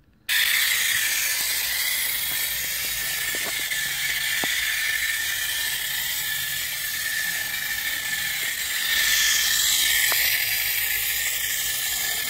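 Clockwork motor of a wind-up toy train running at full wind: a steady high whir that starts suddenly as the train is let go and carries on as it circles a loop of plastic track. A few faint ticks are heard along the way.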